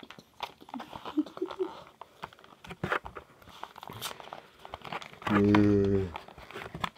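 Cardboard packaging of a Pokémon card box crinkling and tearing as fingers pick and pull at it, with small crackles and clicks throughout. About five seconds in, a person's voice holds one steady note for under a second, the loudest sound here.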